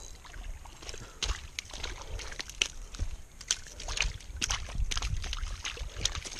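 A small largemouth bass flopping on wet gravel and stones at the water's edge, giving irregular slaps and clicks that come thicker in the second half, mixed with footsteps crunching on the gravel and a low rumble.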